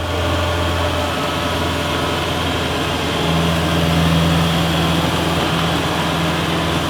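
Rice combine harvester's engine running steadily, a constant low drone, with a higher steady hum joining about three seconds in.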